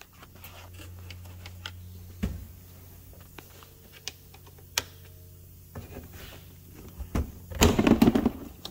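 Hands handling plastic parts in a car's engine bay: scattered light clicks and knocks over a steady low hum, with a louder stretch of clattering and rustling near the end.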